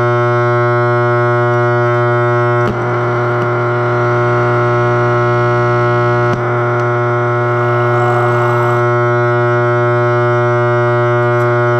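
Electronic noise music: a steady drone made of many stacked tones, with a layer of harsh crackling noise that cuts in a few seconds in and cuts out about four seconds later, each change marked by a click.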